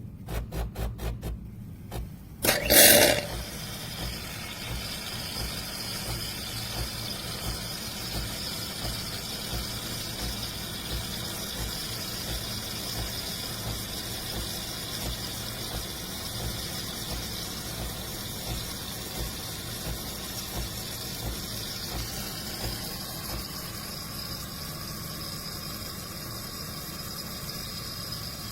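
Automatic espresso machine running: a quick run of pulsing clicks, a short loud squealing hiss about three seconds in, then a steady mechanical hum with a high hiss.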